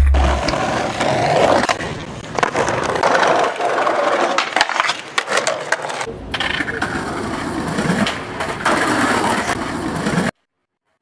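Skateboard wheels rolling over paving stones, a rough rumble with rapid clicks as the wheels cross the joints. The sound changes about six seconds in to another board rolling, then cuts out near the end.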